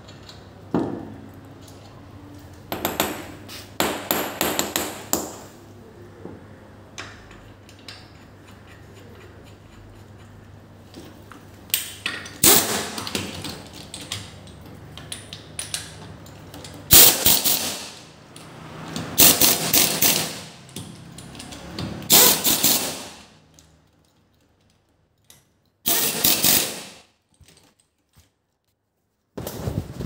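Workshop tool noise from a car brake-pad job: about seven bursts of rapid rattling impacts, each under two seconds, separated by quieter stretches. Near the end the sound drops out almost completely twice.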